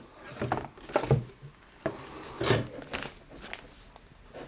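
Unpacking noise from a cardboard microphone box, its plastic insert and a paper leaflet: a string of short taps, rustles and crinkles as the pieces are handled and pulled out.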